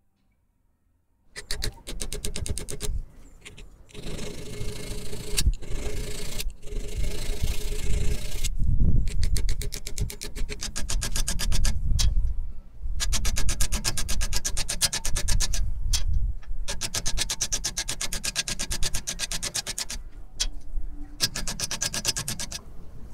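Hand hacksaw cutting a thin steel rod clamped in a bench vise, starting about a second in: fast back-and-forth rasping strokes in runs, with a few short pauses.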